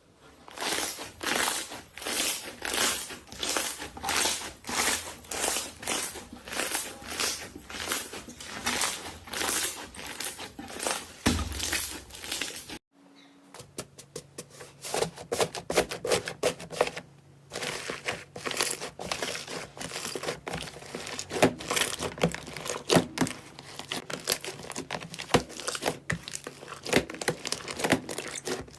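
Slime being squeezed and kneaded by hand, giving a regular run of crinkling crackles about two to three a second. After a short break about halfway, a second stretch of sharper, irregular clicks and pops from slime being pressed, over a faint low hum.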